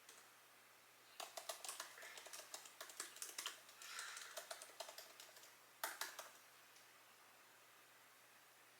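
Faint rapid, irregular light clicking for about four seconds, then a short cluster of louder clicks about six seconds in.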